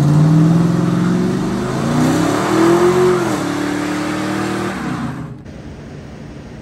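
6.0-litre LS V8 of a 1999 2500 pickup revving: the engine note climbs, peaks about three seconds in and drops back, holds briefly, then breaks off about five seconds in.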